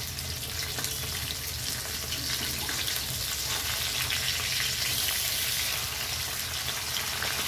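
Catla fish steaks sizzling steadily as they shallow-fry in oil in a steel kadai, with a spatula stirring and turning the pieces.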